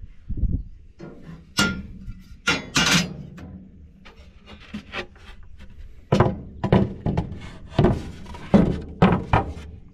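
Plywood seat boards being handled and set down on a steel seat frame: a string of irregular wooden knocks and thunks, with some rubbing as the boards slide into place.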